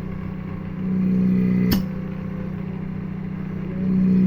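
A repaired DC 'missile' water pump running with a steady electric-motor hum during a suction check. It gets louder for about a second twice, and there is one sharp click near the middle.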